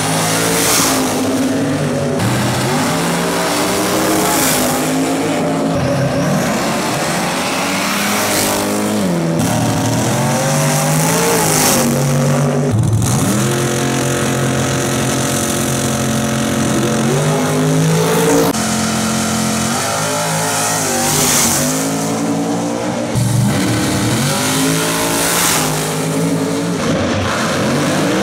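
Supercharged drag-racing car engines being revved hard. The throttle is blipped again and again, and once is held at high revs for several seconds near the middle.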